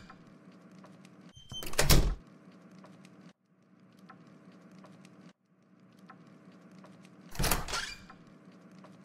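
A door sound effect, heard twice: once about two seconds in and again near the end, each a short loud burst. A faint steady hum runs underneath.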